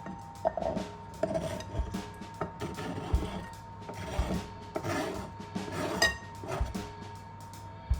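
Dishes and kitchen utensils being handled: a run of small knocks, clicks and scraping.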